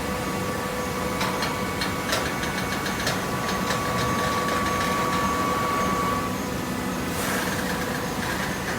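Hydraulic baling press running: a steady motor and pump hum with a whine that drops out about six seconds in, a run of clicks and rattles in the first few seconds, and a short hiss about seven seconds in.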